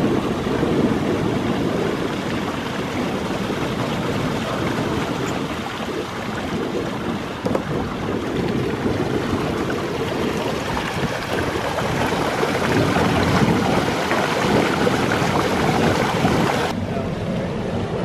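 Wind buffeting the microphone in a steady rushing noise; it turns duller and quieter near the end.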